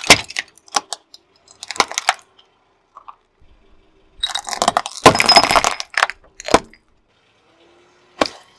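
Objects crushed one after another under a slowly rolling car tyre: crunching and scattering of small candies with cracks at the start, a longer burst of crunching, cracking glass and clinking metal from about four to six and a half seconds in as glass-cupped metal goblets are flattened, and a sharp crack near the end.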